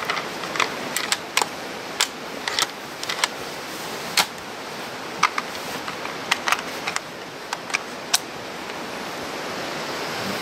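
Bolt-action rifle being handled: the bolt is worked open, drawn and slid back in, giving a run of irregular sharp metallic clicks and clacks. After about eight seconds the clicks stop and only a steady rushing noise remains, growing slightly louder near the end.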